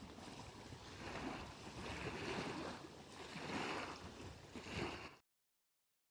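Lake water splashing in regular swells, about one every second and a bit, until the sound cuts off suddenly about five seconds in.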